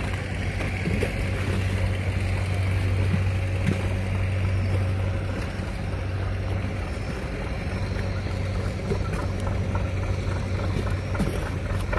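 Fishing trawler's diesel engine running steadily as the boat motors past, a low steady drone over the rush of water along the hull.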